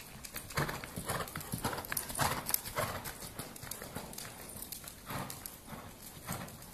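Hoofbeats of a ridden horse moving over sand arena footing, several strikes a second, loudest in the first three seconds.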